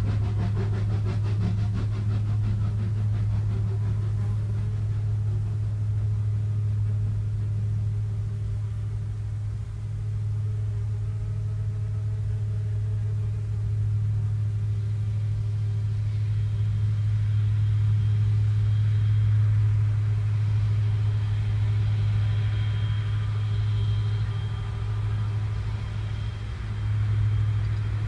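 Diesel rack-railway locomotive working hard uphill, its engine giving a loud, steady low drone. A rapid steam-locomotive exhaust beat is heard over it for the first two or three seconds, then fades. About halfway through a thin high whine joins in as the diesel train passes close below.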